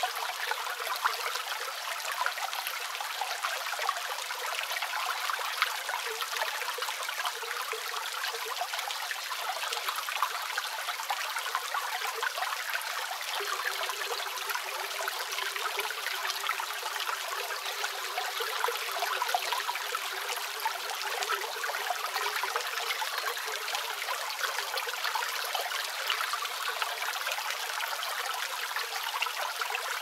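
Small creek waterfall splashing steadily down over tree roots, a light flow with no deep rumble, mixed with rain falling on leaves.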